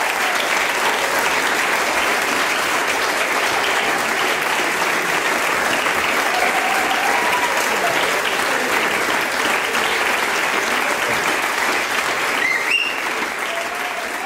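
Audience applauding steadily, the clapping starting to fade near the end.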